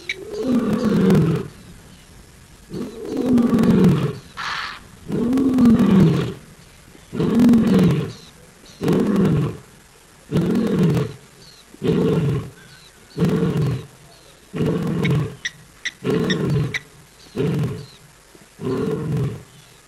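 African lion roaring: a bout of about four long, full roars, then a run of shorter, quieter grunts coming more quickly, each call sliding down in pitch.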